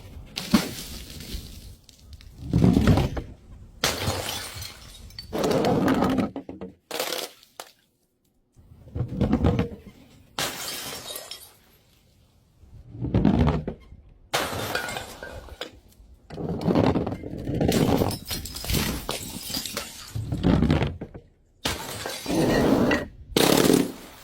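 Glass bottles dropped onto a hard surface and shattering, one after another, a dozen or so times. Each is a sharp crash followed by a short spill of breaking glass.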